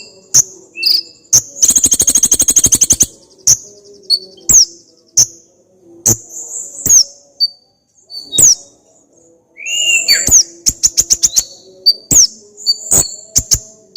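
Kolibri ninja (purple-throated sunbird) singing a varied run of its learned song material: sharp high chips and quick downslurred whistles, with a long rapid trill about two seconds in and another fast series of repeated notes around ten seconds in.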